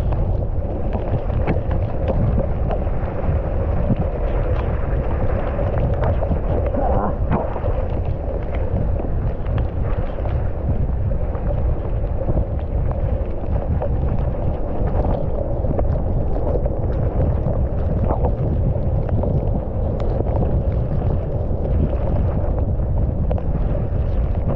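Mountain bike ridden along a dry dirt trail: a steady rush of wind buffeting the action camera's microphone over tyre noise, with frequent short clacks and rattles as the bike hits bumps.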